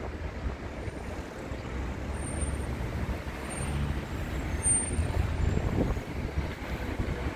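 Wind buffeting the phone's microphone over a low, steady rumble of road traffic.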